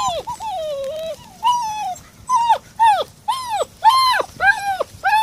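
Seven-week-old puppy whining: a string of high, arching whimpers, one longer falling whine near the start, then shorter cries coming quicker, about two a second.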